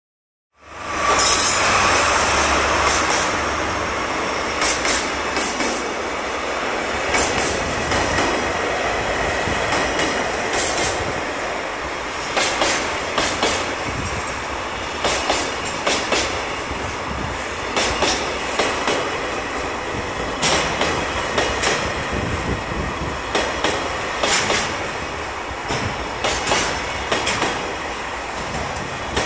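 Diesel-hauled freight train passing close by: the locomotive's engine goes by first and is loudest in the opening seconds, then a long string of loaded container wagons rolls past, their wheels knocking over rail joints in quick clusters of beats every second or so.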